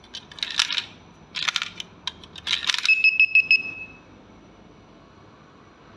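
Coins clinking in three quick bursts as they go into the coin acceptor, then the vending machine controller's buzzer gives about four rapid high-pitched beeps as the last product is dispensed.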